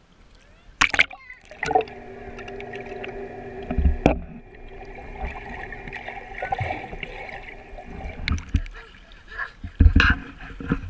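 Pool water heard by a camera going under the surface: a splash about a second in, then several seconds of muffled underwater sound with a steady hum, then splashing again as it surfaces near the end.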